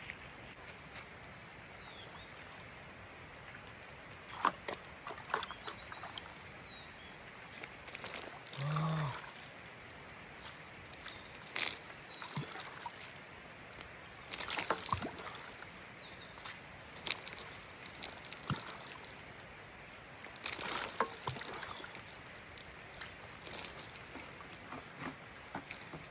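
Water being poured and sloshed in short, irregular bursts, as when rinsing off sweat, with scattered knocks and clicks. A brief low tone sounds about nine seconds in.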